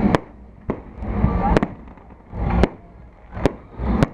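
Fireworks going off: a string of sharp bangs, about one a second, several of them preceded by a rising rush of noise.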